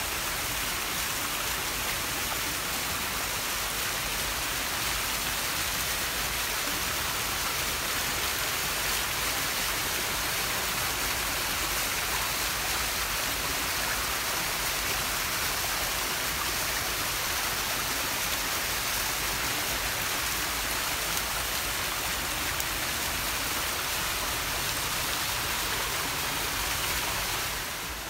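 Stream water rushing steadily over mossy rocks in a small cascade. The rush eases slightly near the end.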